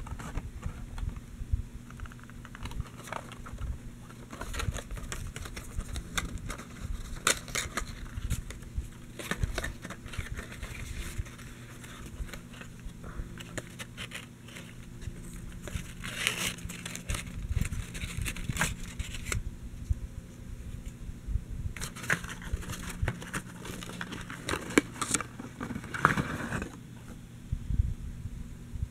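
Cardboard light-bulb box being opened and handled by hand: its flaps and cardboard insert rustle, scrape and click, with two longer, louder bouts of rustling in the second half, over a faint steady low hum.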